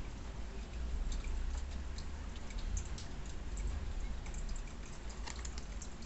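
Tarot cards being handled, with faint scattered clicks and light card-on-card slides as one card is moved behind another, over a low steady hum.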